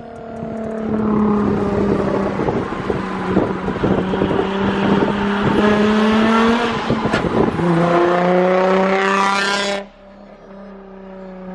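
Nissan 350Z's V6 through a loud Tomei exhaust, heard from outside the car. The engine note falls in pitch for several seconds, rises again under throttle, then cuts off abruptly near the end to a quieter, falling engine note. The turbo whistle on the tailpipe adds no whistle that can be heard over the exhaust.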